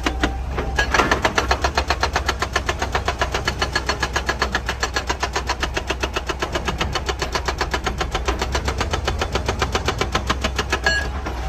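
Excavator-mounted hydraulic breaker hammering rock in rapid, even blows, about seven a second, over the excavator's diesel engine running steadily. The hammering pauses briefly near the start and stops shortly before the end.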